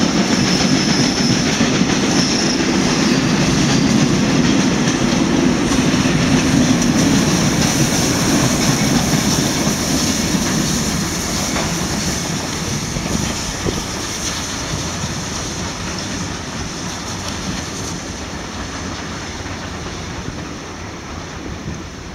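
Passenger coaches of a departing steam train rolling past with a clickety-clack of wheels over rail joints. The sound is loudest in the first half, then fades steadily as the train moves away.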